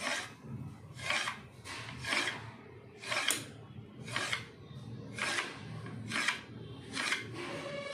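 Knife drawn repeatedly through a rolled sheet of mathri dough, scraping against the metal plate beneath, about one stroke a second as the sheet is cut into equal strips.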